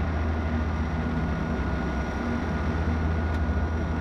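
Steady drone of a small airplane's engines heard from inside the cockpit on short final approach, a few seconds before touchdown, with a faint steady high whine over it.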